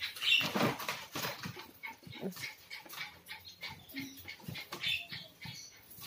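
A small dog scrambling up onto a shelf: irregular scratching and knocking of claws and body on the surfaces, with a few brief soft whimpers.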